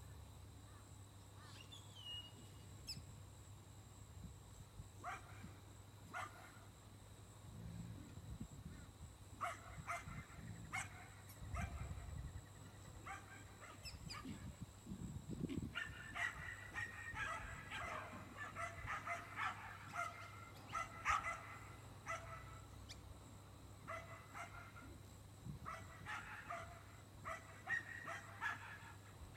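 Working farm dogs barking and yipping faintly, in clusters of short calls that grow busiest in the second half.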